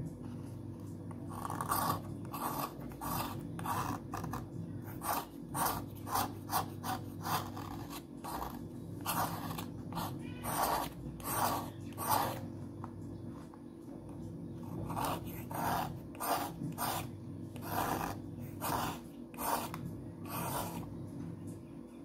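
A metal hobby knife's blade scraping along a white slate pencil in short, repeated strokes, about two a second, with a lull about two-thirds of the way through. A steady low hum runs underneath.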